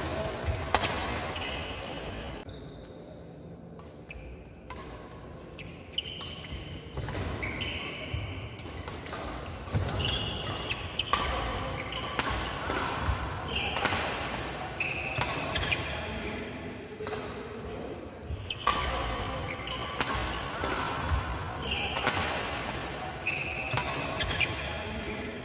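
Badminton doubles rally: rackets smacking the shuttlecock, with court shoes squeaking and feet thudding on a wooden floor, all echoing in a large hall. The play goes quieter for a few seconds early in the rally, then picks up again with quick exchanges.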